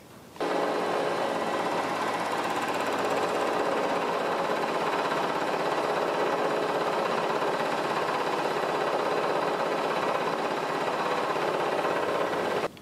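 Milling machine face-milling a bar of metal stock with a homemade indexable-insert cutter, a light finishing pass to clean up the faces. A steady cutting and spindle noise starts suddenly about half a second in and cuts off just before the end.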